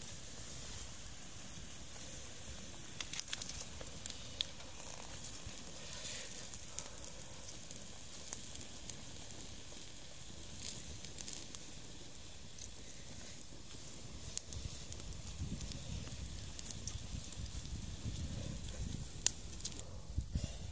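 Small wood fire crackling and hissing under a pot of river shells, with scattered sharp pops.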